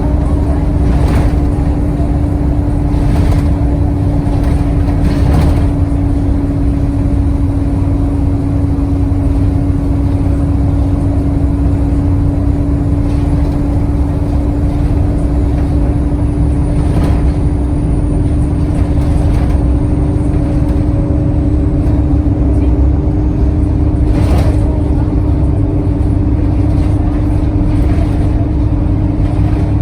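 Alexander Dennis Enviro 200 single-deck bus under way, heard from on board: a steady engine and road rumble with a constant whine, a few brief knocks and rattles, and a faint high turbo whistle that slides down in pitch around the middle.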